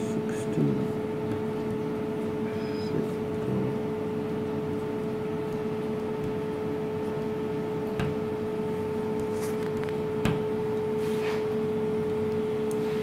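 Steady electrical machine hum with a constant mid-pitched tone, from running equipment.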